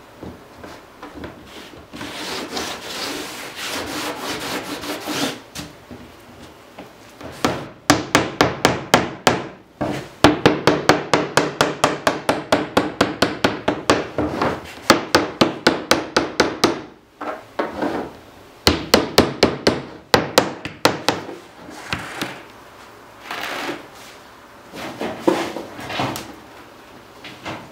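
Hammer tapping a cedar strip down into its gap in a strip-built canoe hull, in long runs of quick light taps, about five or six a second. Before the taps, wood rubs as the strip is pressed into the gap by hand.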